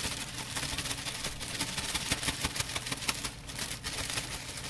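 Chicken and onions sizzling and crackling in a hot frying pan as cooked rice is tipped in from its boil-in bag, over a steady low hum.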